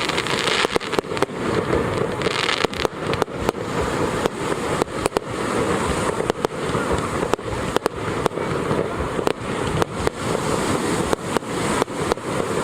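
Fireworks display: a dense, irregular barrage of sharp bangs, several a second, over a continuous crackle and rumble.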